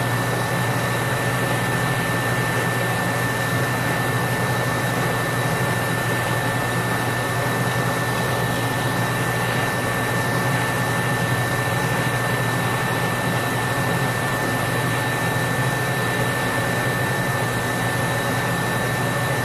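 Handheld gas torch burning with a steady hiss, with a faint steady high tone running through it, as it heats a brass radiator tank and bracket for soldering.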